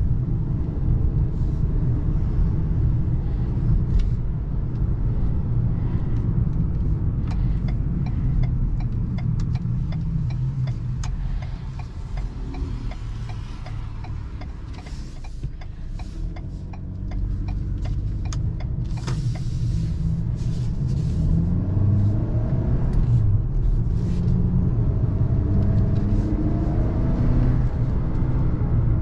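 Ford Maverick's 2.0-litre EcoBoost turbocharged four-cylinder engine and road rumble while driving. The sound eases off around twelve seconds in, then the engine note rises again from about seventeen seconds as the truck accelerates.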